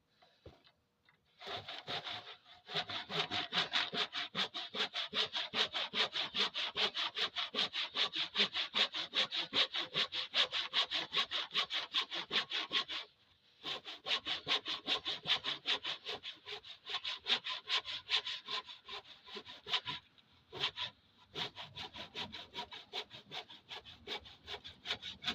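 Cedar being cut by hand with a saw: fast, even back-and-forth strokes, pausing briefly twice.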